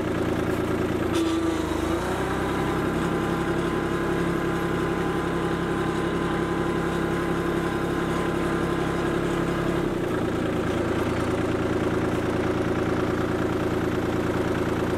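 Kubota B2261 compact tractor's three-cylinder diesel engine running at a steady speed, its low hum shifting slightly about two seconds in and again near ten seconds.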